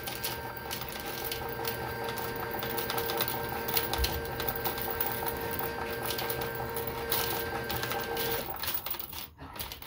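Coin-operated fruit slot machine paying out a win: a fast, steady run of coins clattering out of the hopper into the tray over a steady electronic tone, both stopping about eight and a half seconds in.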